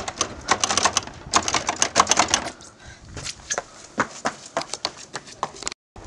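Footsteps running on hard pavement: a rapid string of sharp clicks and knocks, dense for the first two and a half seconds and sparser after. The sound drops out for a moment near the end.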